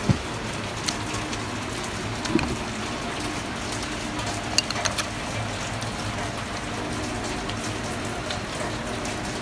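Steady rain falling, an even continuous hiss, with a few light clicks scattered through it.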